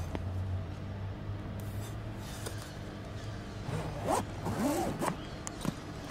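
A zipper being pulled on a soft carrying case, with clicks and rubbing as the case is handled. About four seconds in come a few squeaky rising and falling sounds.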